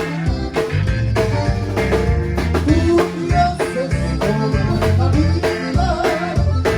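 A live conjunto band playing an upbeat song: button accordion and bajo sexto over a steady drum beat and bass.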